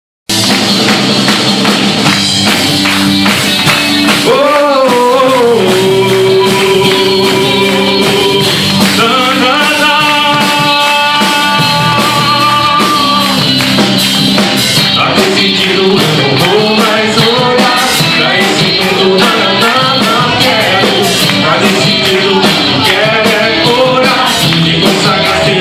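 Gospel worship song: a singer holding long, gliding notes over a full band with steady percussion and tambourine.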